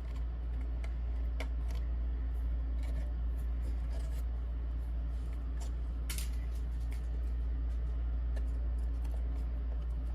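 Small clicks and taps of board pieces being handled and set down during gluing, with a sharper click about six seconds in, over a steady low hum.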